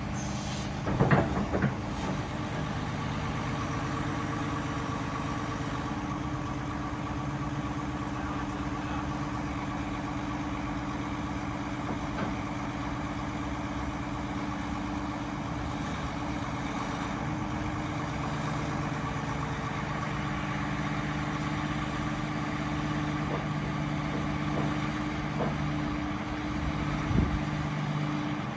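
Cat 349 hydraulic excavator's six-cylinder diesel engine running steadily as the boom and stick move, its hum changing pitch partway through. A few short knocks about a second in and another near the end.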